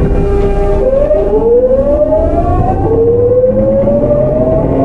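Tokyu 9000 series train's early Hitachi GTO-VVVF inverter whining as the train accelerates. The whine climbs in pitch, drops back about three seconds in and climbs again, over the low rumble of the running train.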